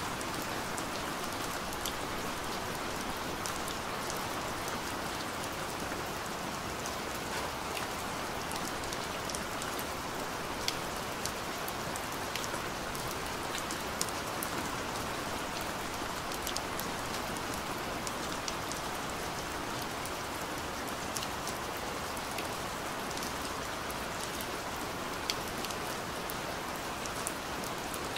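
Steady rain falling: a dense, even hiss with scattered sharper ticks of single drops.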